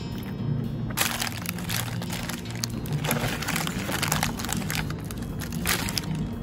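A Subway sandwich's paper wrapper crinkling and rustling as it is unwrapped, in a long run of crackles from about a second in and another short burst near the end, over background music.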